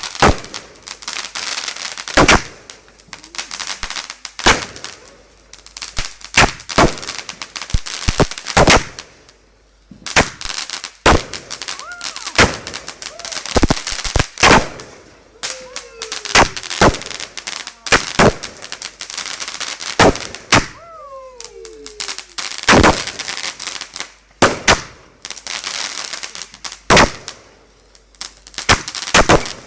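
Consumer fireworks cake firing shot after shot: dozens of sharp bangs at an uneven pace, with crackling and hiss between them.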